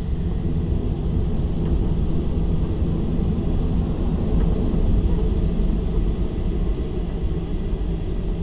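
Cabin noise of a Boeing 737-800 on the ground: a steady low rumble from its CFM56 engines at low thrust and the rolling gear, with a faint steady high whine over it.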